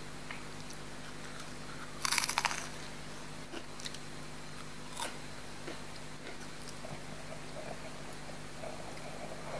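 A loud crisp bite into a crunchy snack about two seconds in, followed by scattered quieter crunches and chewing, close to the microphone.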